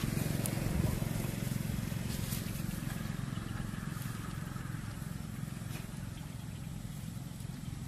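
A steady low motor hum, fading slightly, with a few faint clicks over it.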